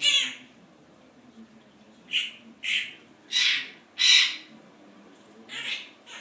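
Quaker parrot (monk parakeet) giving a series of about seven short, harsh squawks, the loudest about four seconds in.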